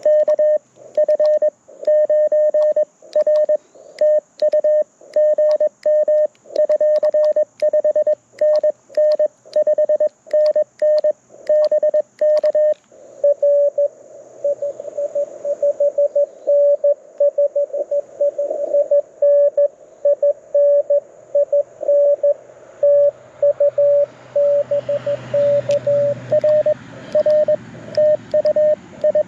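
Morse code tones from a Mountain Topper MTR4B V2 transceiver, one steady pitch keyed on and off. For about the first thirteen seconds it is the sidetone of the operator's own sending, with the paddle key clicking in time with each element. After that a received station's code comes in over faint band hiss that grows toward the end.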